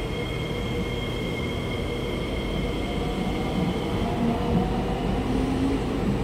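Metro train pulling out of a station platform: a steady high electric whine, then the motor whine rises in pitch as the train gathers speed, about four seconds in.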